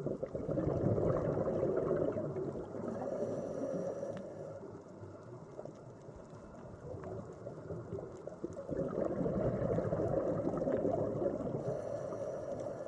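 Underwater water noise: a muffled bubbling rumble that swells, dies down about halfway through, and swells again near the end.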